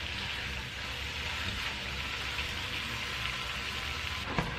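Ground turkey sizzling steadily in a hot, oil-sprayed pot as a spatula breaks it up. A short knock comes near the end.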